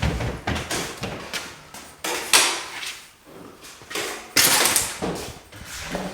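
Irregular scrapes and knocks of drywall finishing work: a sharp knock about two seconds in and a longer hissing scrape a little before five seconds.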